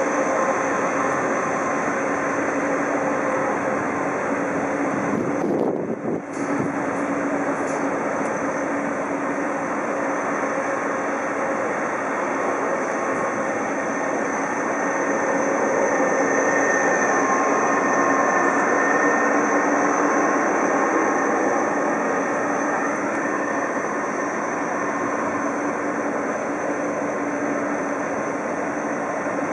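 Jet airliner engines running at taxi power: a steady rumble with a constant whine over it.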